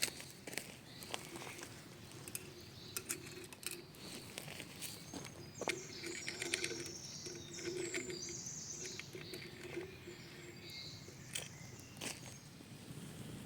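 Forest ambience: small clicks and taps scattered throughout, with a bird chirping in a run of high notes about halfway through.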